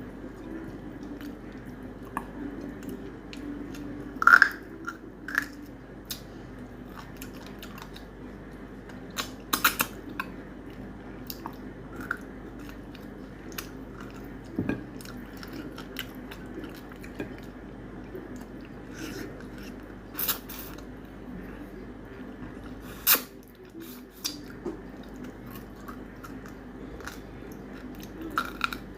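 A person chewing mutton curry and rice close to the microphone, with wet mouth smacks and scattered sharp clicks; the loudest come about four seconds in, around nine to ten seconds in, and about twenty-three seconds in.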